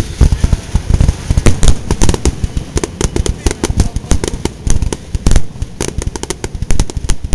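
Aerial fireworks launching and bursting in a rapid barrage: a dense run of sharp bangs and crackles, many a second.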